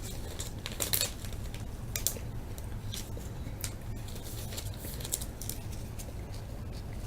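Trading card being handled and slipped into a soft plastic penny sleeve: scattered light crinkles and ticks over a low steady hum.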